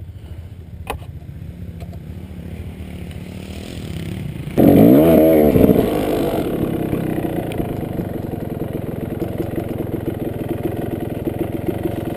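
Kawasaki dirt bike engine idling low, then revved hard about four and a half seconds in, its pitch wavering quickly up and down for a second or so. It then settles into steady running as the bike rides off.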